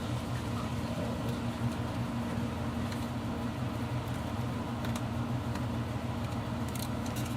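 Steady low mechanical hum, as from a fan or running appliance. A few faint clicks and taps, clustered near the end, come from a small screwdriver being worked at the screws of a Dyson V8 vacuum's battery pack.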